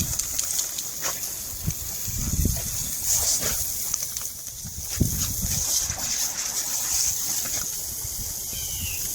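Lawn sprinkler spraying water in a steady hiss that swells and fades every second or two, with scattered low thumps and rumbles.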